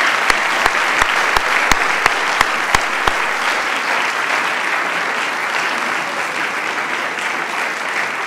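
Audience applauding steadily, with one person's louder, close-up claps at about three a second over the first three seconds.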